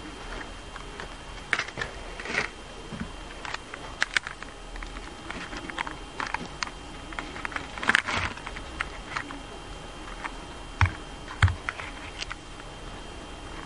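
Plastic toy car body crackling and snapping irregularly as a hot iron is pressed down on it. The clicks come at uneven intervals, with a louder cluster of snaps about eight seconds in and two more near eleven seconds.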